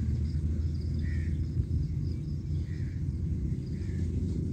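Outdoor ambience: a steady low rumble with faint short chirps repeating about every second and a half.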